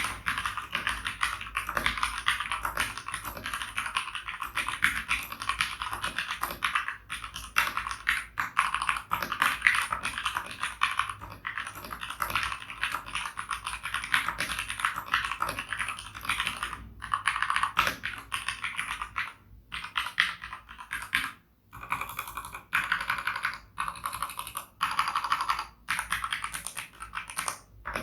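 Typing on a Keychron K2 V2 mechanical keyboard with red linear switches: a fast, steady clatter of keystrokes. There are a few short pauses, the longest about three quarters of the way through.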